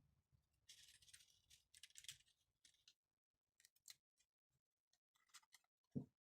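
Faint paper rustling and scraping as glued paper rabbit ears are handled and pressed onto a plastic plate, in a longer stretch about a second in and a few short bursts later, with a soft low thump near the end.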